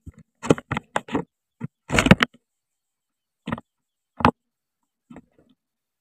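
Irregular short rustles and crackles of a dry-grass coucal nest, about ten in all, loudest in a quick cluster about two seconds in, with dead quiet between them.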